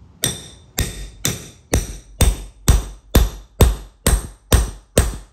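Hammer striking a steel setting rod about twice a second, driving the slug down inside a concrete anchor so the anchor flares out and sets in the floor. Each blow is a sharp metallic clank with a brief ring, the first few lighter than the rest.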